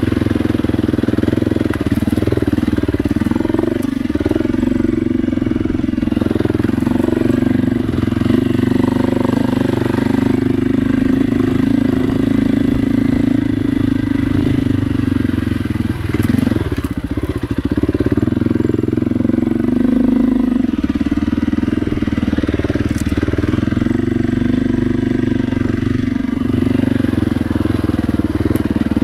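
Dirt bike engine running steadily as the bike is ridden at a slow trail pace, its pitch wavering a little with the throttle. It briefly drops off a little past halfway, then picks back up.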